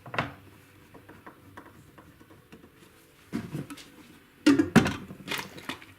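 Sharp knocks and clunks of a folded-metal pickup winder case being handled while its screws are fitted by hand, with light clicks between. The loudest clunks come about four and a half to five and a half seconds in.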